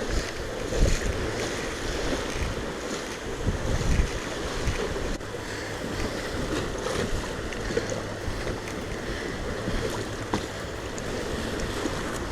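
Wind gusting across the microphone over the steady wash of choppy waves.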